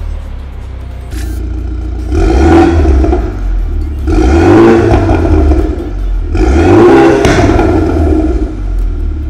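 BMW 428i's turbocharged 2.0-litre four-cylinder idling, then revved three times in place through a catless turbo-back exhaust with a de-catted downpipe and valved muffler. The first rev is short and the second and third are held for about two seconds each. The muffler valves are switched from closed to open within the first few seconds.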